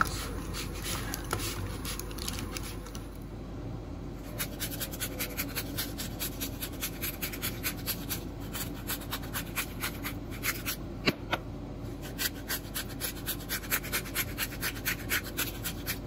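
Hand-twisted black pepper grinder grinding peppercorns in a run of gritty clicks, about three or four a second, with a couple of short pauses. Before it starts, hands rub oiled asparagus on a foil tray.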